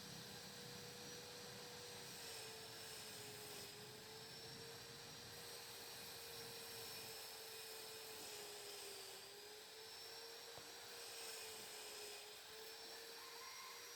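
Faint steady hum over hiss, its pitch dipping slightly now and then.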